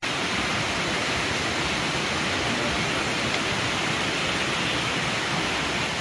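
Steady, loud rushing of water, an even hiss without rhythm, cutting in abruptly at the start.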